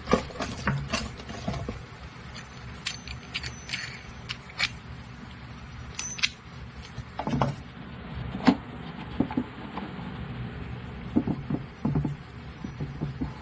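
Small metallic clicks and clinks as the wing nuts and washers on the threaded steel rods of wooden wheel clamps are handled and tightened by hand, with a few duller knocks in the second half.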